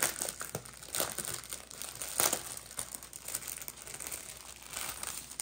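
Plastic packaging crinkling and rustling in irregular crackles as a plastic-wrapped diamond painting kit and its packets of drills are handled.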